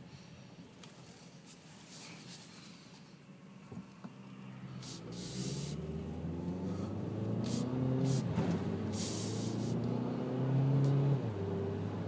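2012 Ford Focus Titanium's four-cylinder engine heard from inside the cabin as the car pulls away and accelerates, its note rising in pitch and dropping back at each upshift of the dual-clutch automatic. A few short bursts of hiss come through as well.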